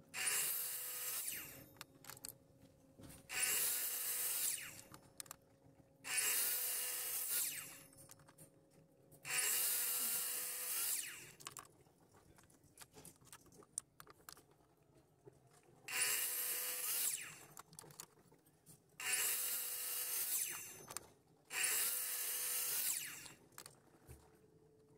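Metabo sliding mitre saw with a 305 mm blade cross-cutting pieces of softwood: seven cuts, each lasting one to two seconds, with quiet pauses between as the wood is repositioned.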